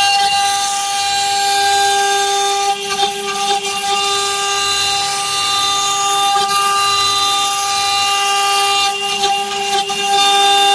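CNC stone-carving router's spindle running with a steady high whine, dipping briefly about three seconds in and again near nine seconds.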